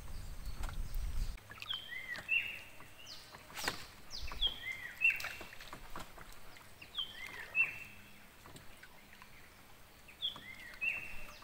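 A bird singing a short phrase of whistled, arching notes, repeated four times about every two and a half seconds. A low rumble fades out in the first second and a half, and a single sharp knock sounds about a third of the way in.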